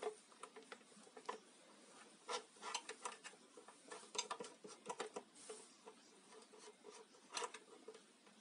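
Faint, irregular clicks and taps of handling as a plastic control knob is pushed onto the switch shaft of a single-burner electric hotplate and the hotplate is moved about.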